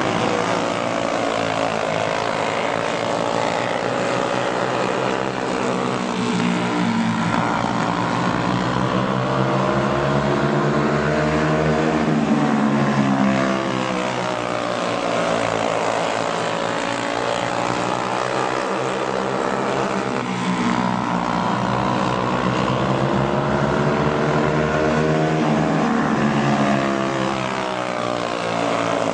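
Several racing go-kart engines, Briggs & Stratton Animal single-cylinder four-strokes, running together. Their pitch repeatedly rises and falls as the karts accelerate and back off around the track.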